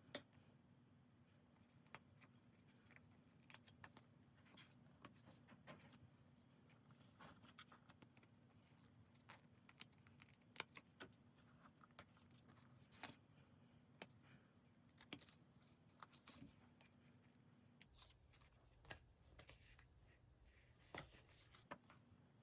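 Quiet snips and clicks of small scissors cutting paper and sticker sheets, irregular and scattered throughout, over a faint low hum.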